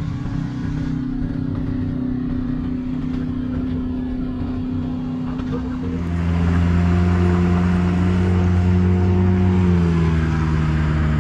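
A motor vehicle's engine running at a steady pitch. About six seconds in it becomes louder and deeper, and it settles slightly lower in pitch near the end.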